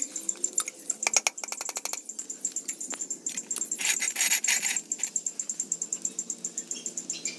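Brass oil lamp parts clinking and scraping as they are fitted together by hand: a quick run of metallic clicks about a second in, then a brief scrape. Behind it runs a steady, rapid, high-pitched ticking.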